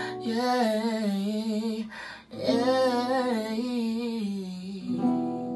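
A singer's wordless 'oh' runs in two wavering phrases, with a short break about two seconds in, over an acoustic guitar. Near the end a guitar chord is struck and rings on.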